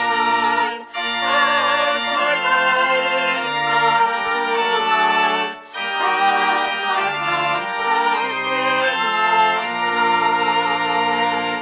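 Organ playing the close of a hymn in sustained chords over a moving bass line. There are short breaks between phrases about a second in and around the middle, and the last chord is released at the very end.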